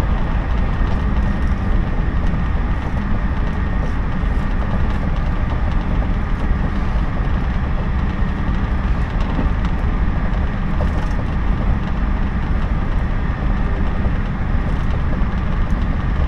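Inside the cabin of a JR 113 series electric train running at speed: a steady, loud rumble of wheels on rail and running gear.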